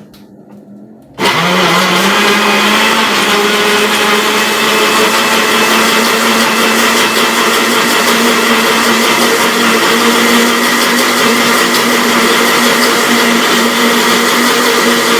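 Countertop blender switched on about a second in, its motor spinning up with a short rising whine and then running steadily at speed, blending bananas, eggs and milk into pancake batter.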